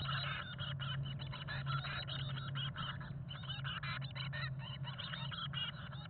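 Nearly fledged chickadee nestlings inside a nest box giving rapid, overlapping begging calls, with rustling, while an adult feeds them. A steady low hum runs underneath.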